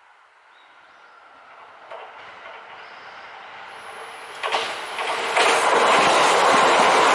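Kintetsu 80000 series Hinotori electric express train approaching and passing close by: its rail and wheel noise swells steadily, then becomes loud as it reaches the spot about five seconds in. A few sharp clacks cut through as it nears.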